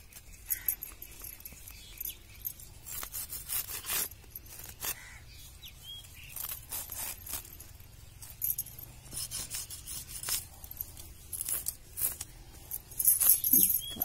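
Knife blade slicing and scraping through nylon fishing-net strands: a run of sharp little snaps, clicks and rustles, busier and louder near the end.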